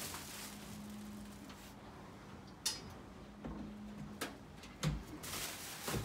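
Plastic wrapping rustling as it is pulled off a PC case. Then a few sharp knocks and a dull thump as the case is handled and set down on a wooden table.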